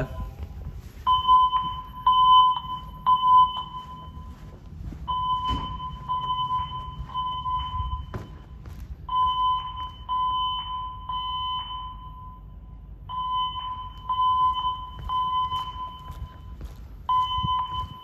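Fire alarm voice-evacuation system sounding the temporal-three evacuation tone: three short beeps on a single tone, then a pause of about a second and a half, repeating every four seconds. Faint footsteps and knocks between the beeps.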